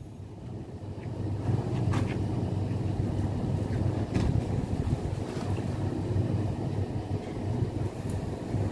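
A small engine running steadily at a constant speed, with a few light knocks over it.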